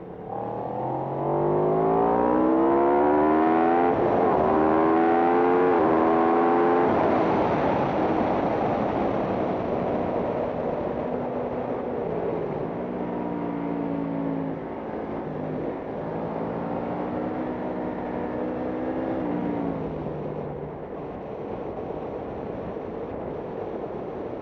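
Racing motorcycle engine accelerating hard, its pitch climbing and dropping sharply at quick upshifts about four and six seconds in, then a rushing noise takes over. Later the engine runs at a lower, steadier pitch and steps down near the end of that run.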